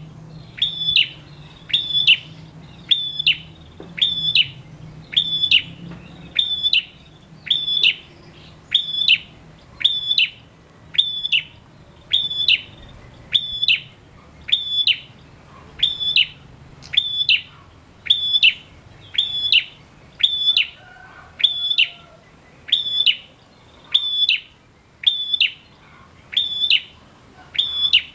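Male prenjak calling: one short, sharp chirp with a quick downward tail, repeated steadily about once a second.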